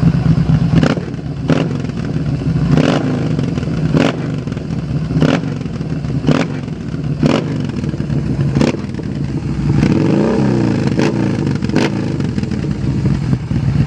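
Yamaha Bolt's 942 cc air-cooled V-twin through a custom handmade slip-on exhaust, idling while the throttle is blipped in short, sharp stabs about once a second. About ten seconds in it is revved up and back down once.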